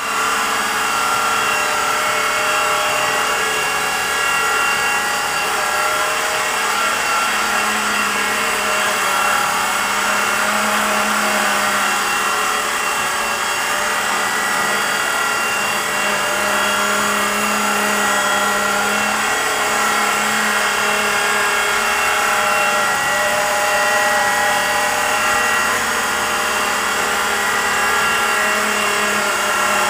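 Blade 120 SR micro electric RC helicopter hovering: a steady electric motor and gear whine with the rotor blades spinning, its pitch wavering a little as the throttle is worked to hold position.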